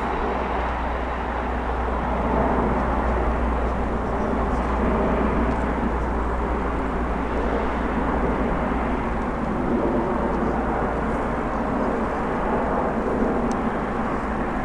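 Boeing 737-300 jet airliner on approach, its CFM56 engines making a steady rushing noise that swells slightly about two seconds in.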